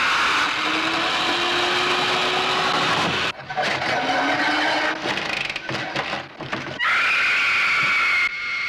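Power drill with a long spiral bit boring through a wooden door, running in a long steady burst and then in short stop-start bursts. Near the end comes a loud, high, drawn-out cry lasting about a second and a half.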